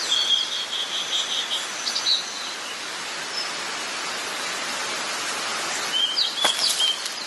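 A rattlesnake rattling its tail in a steady, dry buzz, with short bird chirps near the start and again near the end.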